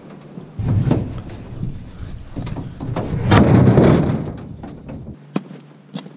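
Rumbling, rushing handling noise on an action camera's microphone as the camera is moved about, loudest about three seconds in, with a few sharp knocks near the end.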